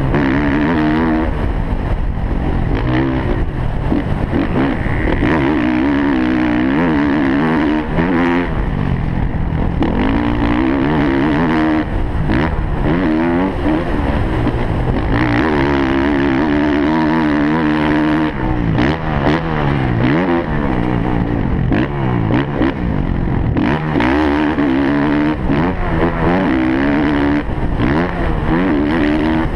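Motocross bike engine revving hard and then easing off, again and again, as it is ridden through a lap, heard from the rider's helmet camera. Its pitch climbs through the gears and drops away each time the throttle shuts into a corner or a landing.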